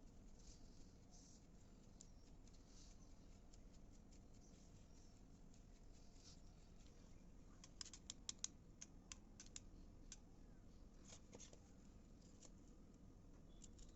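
Faint scattered clicks and scratches of small craft materials being handled, with a quick run of sharper clicks about eight seconds in, over near-silent room tone.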